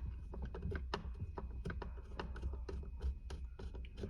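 Light, irregular clicks and taps of a screwdriver with a star bit working a screw out of the plastic center-console armrest latch, several a second, over a steady low hum.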